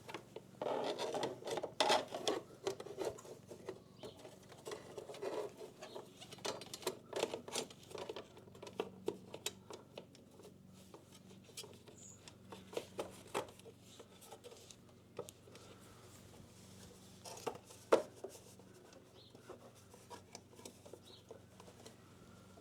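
A detailing brush scrubbing dried bugs out of a motorcycle radiator: a dense run of quick scratchy strokes for the first several seconds, then sparser scrapes, with one sharper knock about three-quarters of the way through.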